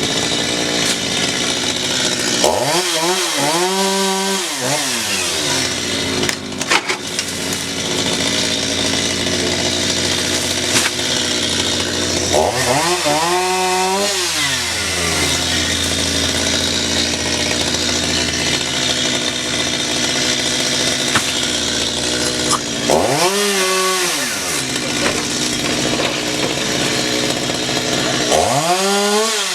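Chainsaw engine running steadily, revving up and dropping back four times, about every ten seconds.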